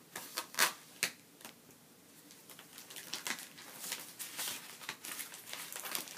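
A few sharp clicks in the first second and a half, then paper and plastic packaging rustling and crinkling as a shipping label is pulled off a package.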